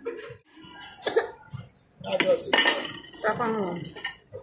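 Cutlery clinking and scraping against a ceramic dinner plate, with a few sharp clinks, among voices talking.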